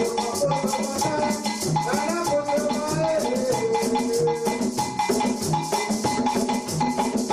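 Live samba-style groove from a hand-drum and percussion ensemble of congas, djembes and shakers. Dense fast shaker strokes run over a steady low drum beat a little over once a second. A melodic line gliding in pitch rides over the drums in the middle.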